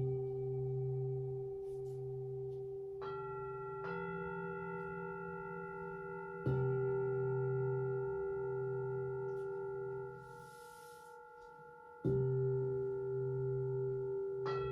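Tibetan singing bowls struck one at a time and left to ring. A low bowl is struck three times with a slow wavering in its tone and is cut short once before being struck again; higher bowls are struck about three and four seconds in and again near the end.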